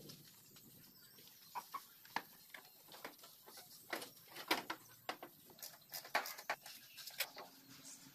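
Faint, irregular clicks, taps and knocks of a bucket seat being handled and set onto its mount in a steel-tube buggy frame.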